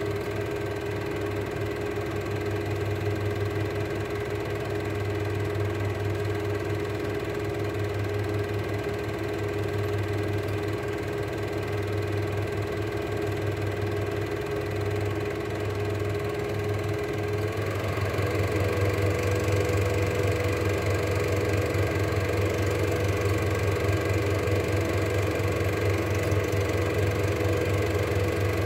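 Cine film projector running with a steady mechanical whir and hum. About 17 seconds in, its pitch steps up slightly and it gets a little louder.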